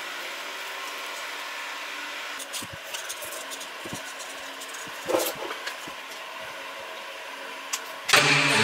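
Light knocks, taps and rustles of wood and a paper template being handled and traced with a marker on a wooden bench board, over a steady fan-like hiss. Music comes in just before the end.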